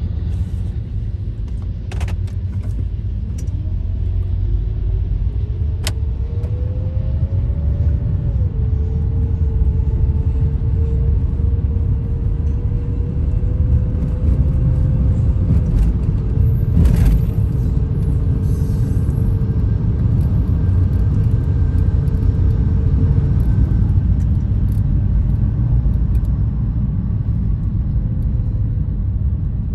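Steady low road rumble of a car driving, heard from inside the cabin. A faint engine hum rises for a few seconds, drops a little about eight seconds in, then holds steady. A single sharp click comes just past halfway.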